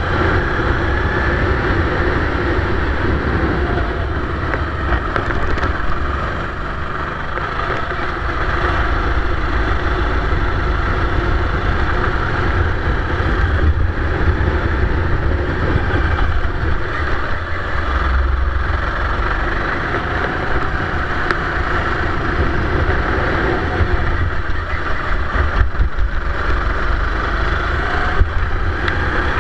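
Onboard sound of a Sodi rental kart's engine running at racing speed, its pitch rising and falling gently with speed, with wind buffeting the camera microphone.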